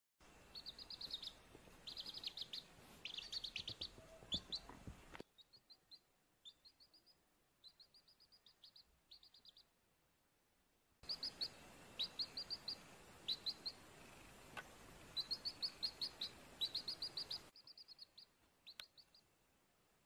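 Baby chick peeping: quick runs of short, high peeps in bursts, with a faint hiss behind them that drops away and comes back twice.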